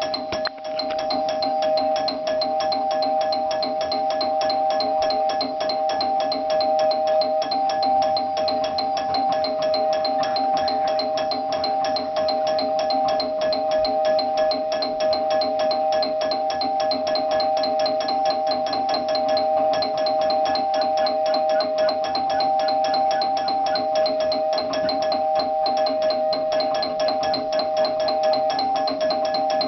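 Doorbell ringing nonstop: a steady two-tone ring with a fast, even rattle of repeated strikes, kept up without a break.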